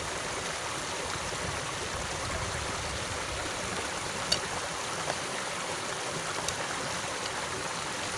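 Water flowing along a ditch, a steady rushing, with a sharp click about four seconds in and two fainter clicks after it.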